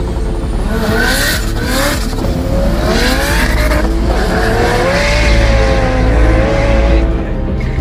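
Two drag-racing cars launching off the start line and accelerating hard. The engine note climbs in pitch and drops back several times as they shift up through the gears, with a little tyre squeal.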